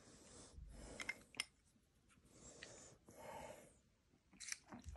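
Near silence with faint breaths, the clearest about three seconds in, and a few small clicks and rustles.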